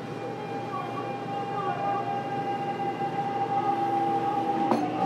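Hitachi GTO-thyristor VVVF inverter of a Fukuoka City Subway 2000 series train whining under power, heard from inside the car over the running rumble. A steady high tone holds while lower tones step and shift in pitch, and the sound grows louder, as when the train is pulling away. There is a click near the end.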